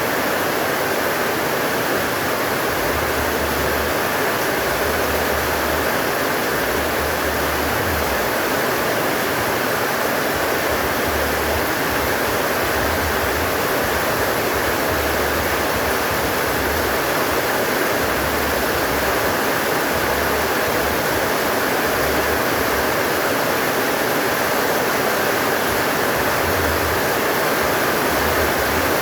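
Heavy rain pouring down steadily, with low wind rumbles coming and going.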